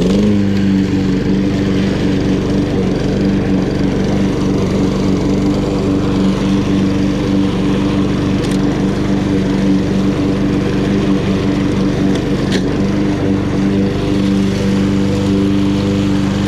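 Honda GCV170 single-cylinder engine on a walk-behind lawn mower, coming up to speed right at the start and then running steadily at full throttle while mowing.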